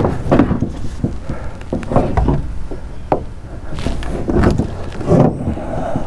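A heavy hand cutting tool biting again and again into a thick old 50-amp marine shore power cable, a series of irregular crunching knocks. The tough, sun-hardened cable is resisting the cut.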